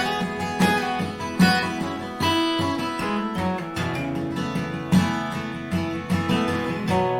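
Acoustic guitar strummed in an instrumental break between sung verses, with sharp chord strokes about every half second and notes ringing between them.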